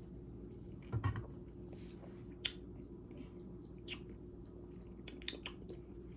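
Faint mouth sounds: a few scattered wet clicks and smacks, like chewing or tasting, with a soft low thump about a second in, over a steady low room hum.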